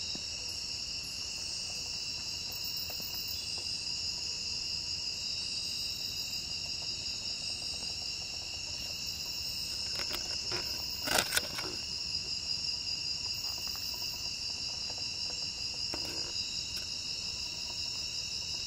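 Steady high-pitched chorus of night insects, running without a break. A short cluster of clicks and knocks comes about ten to eleven seconds in.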